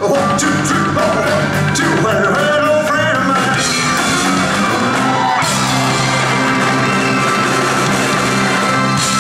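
Live rock and roll band with a male lead singer.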